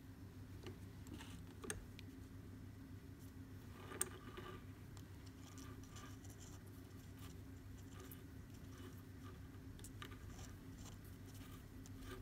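Faint rustling and small clicks of macrame cord being handled and pulled tight into knots, over a steady low hum. A sharper click stands out about four seconds in.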